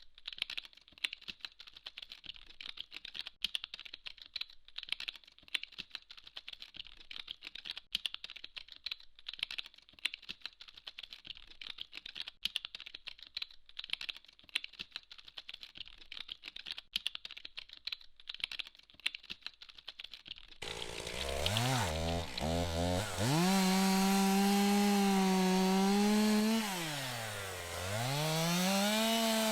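Rapid, irregular light clicking, like keys being tapped, for about twenty seconds. Then an electric saw motor starts with a loud whine, revs up and down a few times, and runs steadily, dipping once briefly before picking up again.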